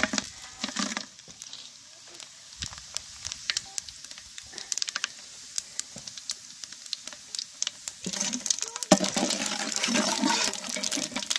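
Whole spices and cashew nuts frying in hot oil and ghee in a large aluminium pot, crackling and popping. The crackle grows louder and denser about eight seconds in, as a perforated ladle stirs through them.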